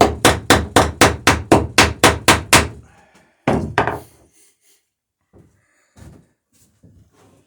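A hammer peening a copper boat rivet, with a backing block held against the rivet head: a quick run of about four sharp blows a second for two and a half seconds. Then one more blow, and a few faint taps near the end.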